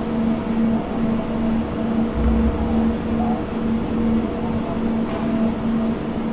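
Steady mechanical hum and rumble, with a low tone pulsing on and off about one and a half times a second and a brief deeper rumble about two seconds in.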